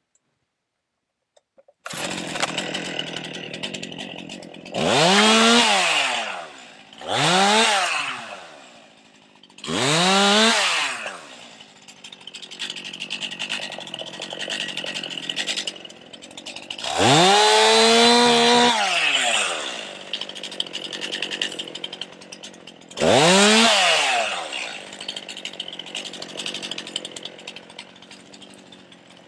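Stihl MS261 C two-stroke chainsaw cutting in about two seconds in and idling, revved up to full throttle five times with the pitch rising and falling back each time; the fourth rev holds at top speed for about two seconds.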